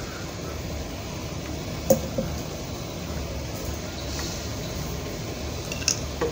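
Wooden spoon stirring thick, simmering milk cream in a non-stick frying pan, with sharp utensil knocks against the pan twice about two seconds in and twice near the end, over a steady low hum.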